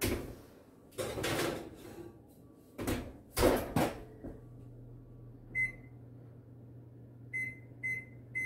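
Oven door opened, a cast iron skillet set inside on the rack, and the door shut, a few clattering knocks with the loudest about three and a half seconds in. Then the range's control panel beeps, once and then three times in quick succession, as the oven timer is set.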